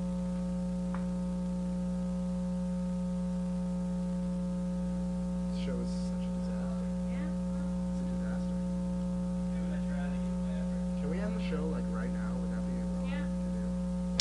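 Steady electrical mains hum, a low buzz with many even overtones, on the audio line. Faint, muffled voices come and go in the background from about five seconds in.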